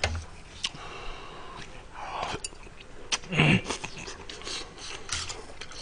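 A man eating ramen noodles with chopsticks: slurping and chewing, with scattered short clicks. About three and a half seconds in there is a brief low vocal 'mm'.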